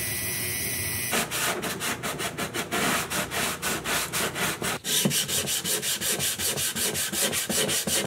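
A rotary tool's sanding drum runs steadily against the work for about a second. Then comes hand sanding: sandpaper scraped back and forth in quick even strokes, about four a second. The scraping changes texture about halfway through.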